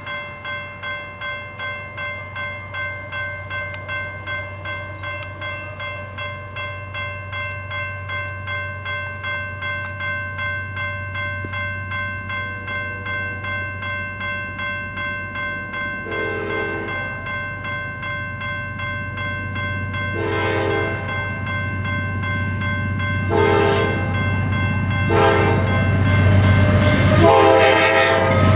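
Grade-crossing bell ringing steadily at about two strokes a second while an approaching Amtrak passenger train sounds its horn for the crossing. The horn gives five blasts, the last and longest near the end, over a growing rumble as the train nears.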